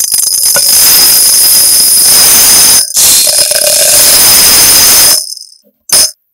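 Small round sugar sprinkles pouring in a steady stream into a glass, a dense rattling hiss of tiny balls hitting glass and each other, with a brief break about three seconds in. The stream dies away and a short knock follows near the end as a clump of kinetic sand drops onto the sprinkles.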